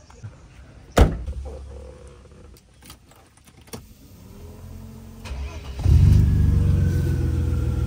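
A single sharp slam about a second in. Then the Mercedes-Benz W124 300E's M103 straight-six is cranked and catches at once, about six seconds in, and runs at a steady, smooth idle.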